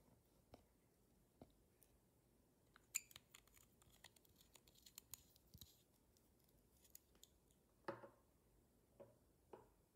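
Clear slime being poked and worked by hand: faint, scattered sticky clicks and pops, with a short squelch near the end.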